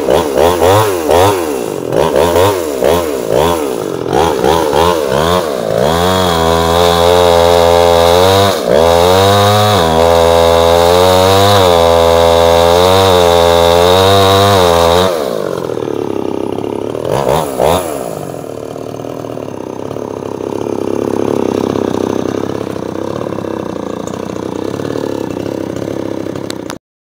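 Two-stroke chainsaw with a freshly sharpened chain, revved up and down several times, then held at full throttle for about nine seconds while cutting into a small tree trunk. It drops back to idle, with two short revs, and the sound stops abruptly near the end.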